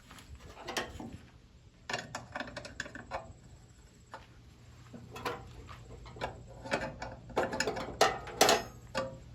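Irregular metal clicks and clanks of small engine parts and hand tools being handled during reassembly, thickest about eight seconds in.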